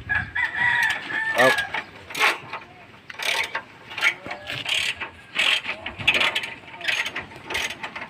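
Irregular metallic clicks and clinks of a hand wrench working the bolts on a one-bagger concrete mixer's engine, as the engine side is unbolted to free the pulley.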